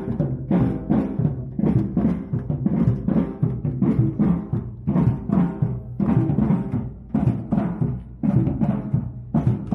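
Samba percussion group playing a driving rhythm on surdos and other Brazilian drums, with deep drum beats repeating two to three times a second.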